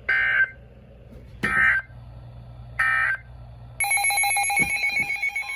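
Three short bursts of screeching SAME digital data tones from a NOAA Weather Radio broadcast, about half a second each and roughly 1.4 s apart: the Emergency Alert System end-of-message code closing the warning. About four seconds in, a harsh, rapidly pulsing electronic alert tone starts.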